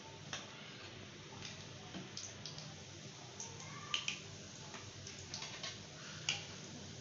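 Chicken shami kababs frying in shallow oil in a steel pan: a faint steady sizzle with scattered sharp clicks as metal tongs lift the kababs out, the loudest clicks about four seconds in and near the end.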